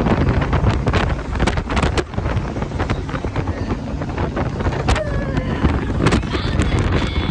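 Wind buffeting a phone's microphone in the open bed of a moving pickup truck, in loud uneven gusts, with the truck's road noise underneath.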